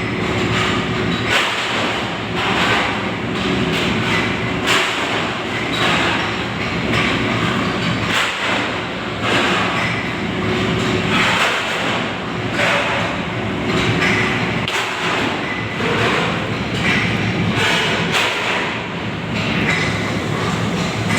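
Air-jet burner firing waste tyre oil: a loud, continuous roar with a steady low hum, broken by irregular knocks and clatter.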